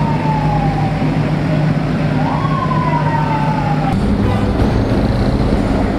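Emergency vehicle siren wailing over a steady engine rumble. The wail falls, swoops back up and slowly falls again, then cuts off abruptly about four seconds in, leaving a steadier street and traffic rumble.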